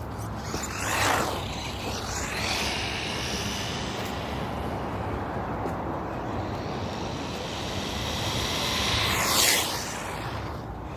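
Fayee FY03 Desert Eagle RC truck driving, its electric motor whining up in short bursts of throttle about a second in, near two seconds and around nine and a half seconds in, over a steady rushing noise.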